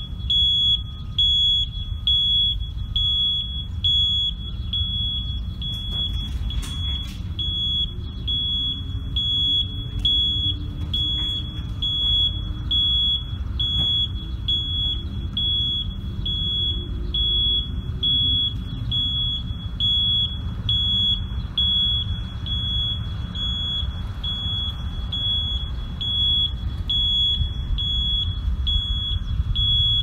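School bus backup alarm beeping while the bus reverses: a single high-pitched beep repeating about twice a second, over a low rumble of engine and traffic.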